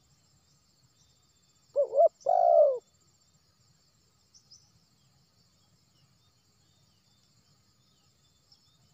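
Spotted dove giving one short coo call about two seconds in: a quick double note followed by a longer, falling note.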